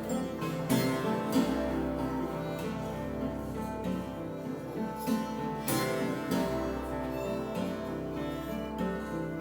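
Improvised acoustic instrumental music: plucked string instruments ringing in layered sustained notes, with a low drone that comes and goes and a few sharp struck notes.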